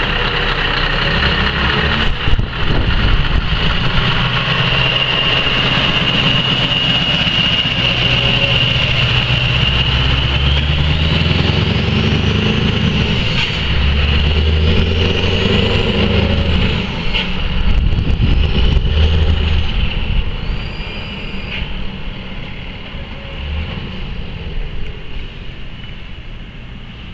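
Scania R-series V8 diesel truck fitted with Dutch-style rear-exit exhaust pipes, running loud as it pulls away and drives off, fading over the last few seconds. A high whistle over the engine holds steady, then rises and falls several times as the truck accelerates.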